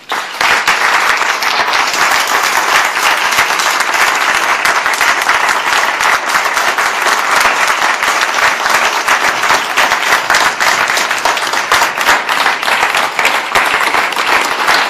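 Audience applauding: many people clapping together. It starts suddenly and keeps up at a steady level.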